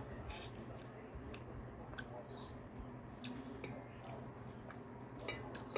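Quiet eating sounds: a metal spoon clicking and scraping on a glass plate, with chewing and lip smacks, over the steady low hum of an electric fan. The sharpest clicks come a little after five seconds in.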